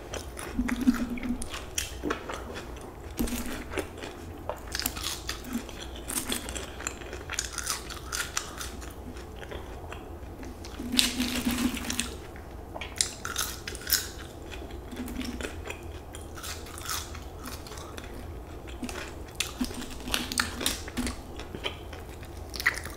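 Close-miked chewing and crunching of crispy fried chicken and french fries, a run of irregular bites, crunches and small mouth clicks.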